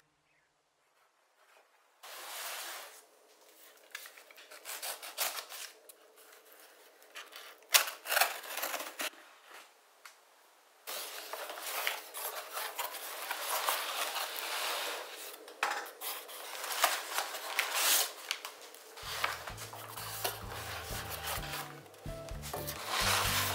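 After about two seconds of near silence, a cardboard shipping box is cut open and unpacked by hand: a knife slits the tape, then irregular cardboard rustling, scraping and sharp knocks as the flaps are opened and the boxed laser level is lifted out. Background music comes in near the end.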